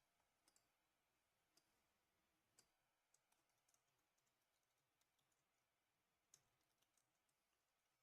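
Near silence with faint, irregular clicks of computer keys, a few at a time, the sharpest about six seconds in.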